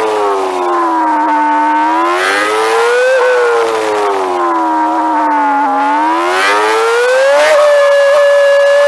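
MV Agusta Brutale inline-four engine under a lapping rider, the revs falling as the bike slows, climbing again, falling, then rising and holding a high steady note near the end.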